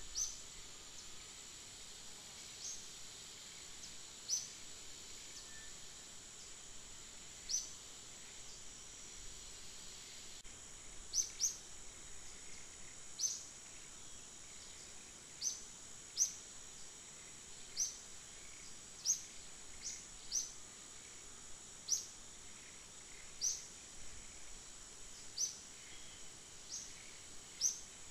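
Forest ambience: a steady high insect drone, with a bird repeating a short, sharp rising chirp every second or two, more often after about ten seconds in.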